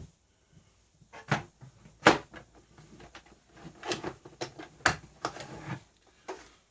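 Irregular knocks, clicks and rustles of the grinder's packaging being handled, with a sharp knock about two seconds in and another near five seconds.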